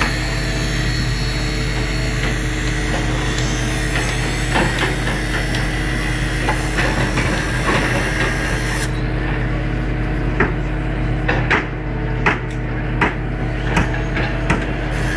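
Construction-site din: a steady machinery hum with irregular sharp knocks of hammering, which come thicker in the second half.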